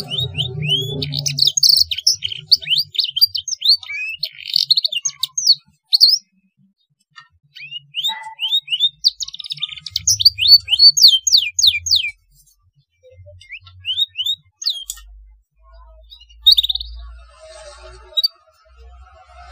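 Young domestic canary singing in runs of quick, sweeping chirps and trills broken by short pauses, its song filled with phrases copied from the blackthroat; it is still learning its song.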